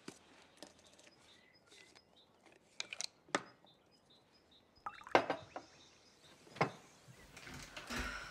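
Several sharp plastic clicks and taps from a small tablet tube being opened and handled, with a noisier rustle near the end and faint bird chirps in the background.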